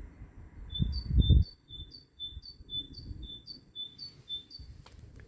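A great tit singing, repeating a two-note phrase, a lower note then a higher one, about twice a second for some four seconds. Low thumps about a second in, and a single sharp click near the end.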